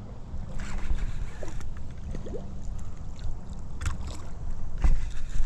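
Rumbling handling noise on a body-worn camera's microphone as a forearm brushes against it, with a few short knocks, the loudest near the end.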